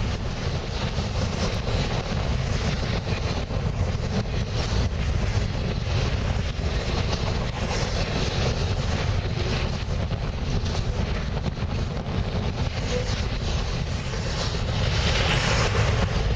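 Norfolk Southern freight train rolling past, its cars rumbling and rattling on the rails, with heavy wind buffeting the microphone. The noise grows louder near the end.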